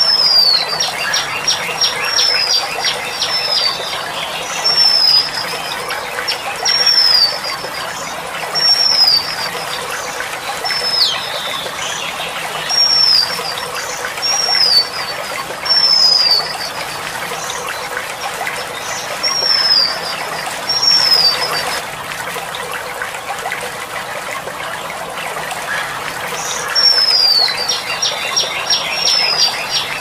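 Female oriental magpie-robin calling: short high notes that slide downward, repeated every second or two, some trailing into a quick rattle, with a gap of several seconds before the last calls. A steady trickle of running water plays underneath.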